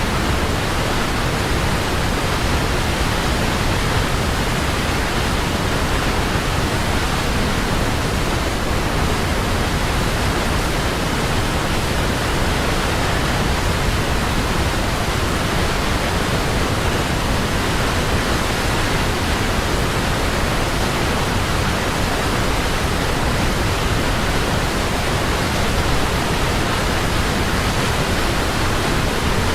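Waterfall: a steady, unbroken rush of falling water with no changes or separate splashes.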